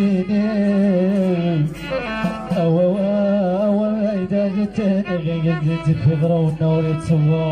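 Live Amazigh folk music: a kamanja (violin) playing a wavering melody over held low notes, with regular bendir frame-drum strikes and singing.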